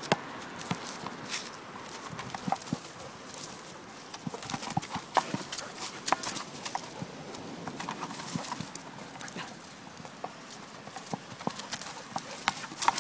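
A pit bull terrier shoving and mouthing a large hard plastic Jolly Ball over grass and sandy ground: irregular knocks, thuds and scrapes of the ball and paws, with a few louder knocks.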